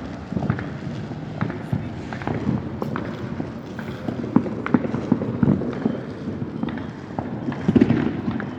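Fireworks going off in quick, irregular succession: many sharp pops and cracks over a continuous rumble, with a louder cluster near the end.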